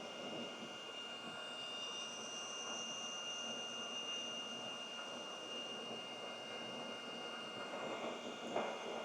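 Steady rush of air from a hot-air rework station heating the console's circuit board to melt the solder, with a thin high whine over it. A short knock near the end.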